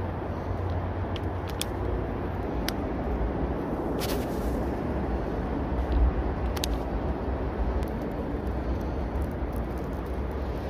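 Steady low rumble of road traffic, with a few sharp clicks from a baitcasting reel as it is cast and cranked in.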